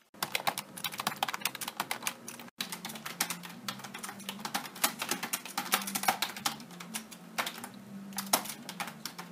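Fast typing on a computer keyboard: a dense, irregular run of keystroke clicks, broken by a sudden brief gap about two and a half seconds in, with a faint low hum underneath.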